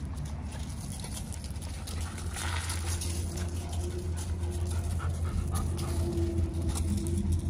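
Dog panting close by, with scattered crunches of paws on gravel.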